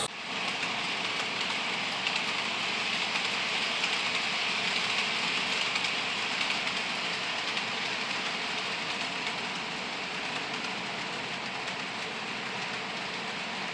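HO scale Athearn Blue Box GP40 model locomotive running with a short freight train: a steady whir of the small motor and gearing with the wheels running on the track, easing off a little about two-thirds of the way through.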